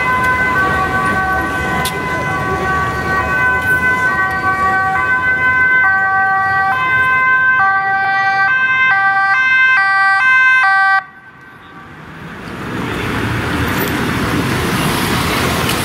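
Dutch police car's two-tone siren stepping back and forth between a high and a low note. It switches faster after about six seconds, then cuts off suddenly around eleven seconds in. Road noise follows, rising as a vehicle comes closer.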